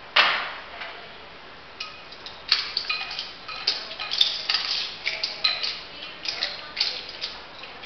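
Flair-bartending practice: metal shaker tins and glassware being tossed, caught and set down. One sharp knock right at the start, then a quick run of short ringing clinks and taps through the second half.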